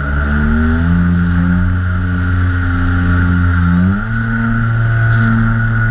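Twin electric motors and propellers of a TwinStar RC plane, heard from its onboard camera: a steady whine made of several pitches. The whine dips at the start, climbs back within a second, and steps up in pitch about four seconds in.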